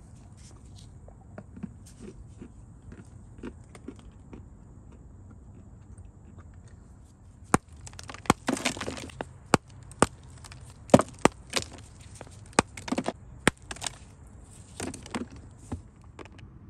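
A small hammer knocks lumps of dry white Turkestan clay, cracking and crumbling them. Faint light taps come first, then from about halfway a quick run of a dozen or so sharp knocks, several followed by a short crumbly crackle as the clay splits.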